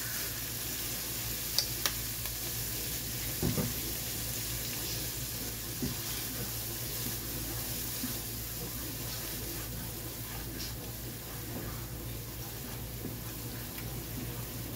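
Diced bell pepper and minced garlic sizzling in oil in a nonstick frying pan while being stirred with a spatula. There are a few light clicks of the utensil against the pan in the first few seconds.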